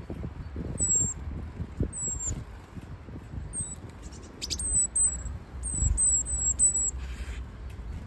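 Tits giving a series of about nine short, thin, very high calls, each falling slightly in pitch, coming closer together in the second half. Under them, wind rumbles on the microphone with a few dull low thumps.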